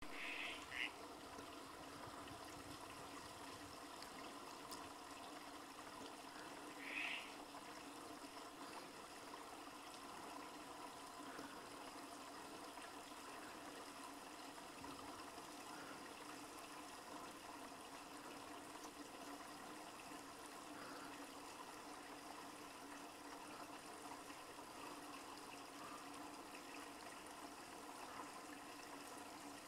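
Tree frog croaking twice, a short two-note call right at the start and a single call about seven seconds in, over the steady trickle of a small stream.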